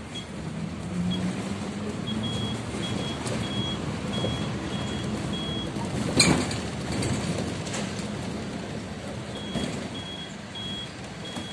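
City bus engine running as the bus moves off, heard from inside the cabin; the engine note rises in the first couple of seconds. A high electronic beep repeats about twice a second in two spells, and there is one sharp knock about six seconds in.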